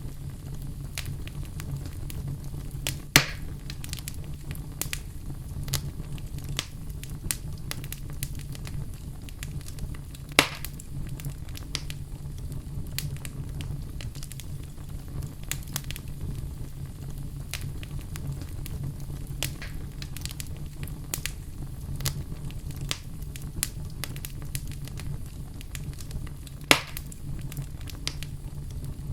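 A fireplace fire crackling steadily over a low rumble, with many small snaps and three louder pops: one a few seconds in, one about ten seconds in and one near the end.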